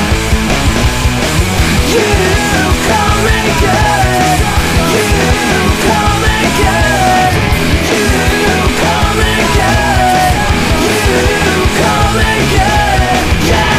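Loud punk rock music with drums and electric guitars, and a melody line winding over the top.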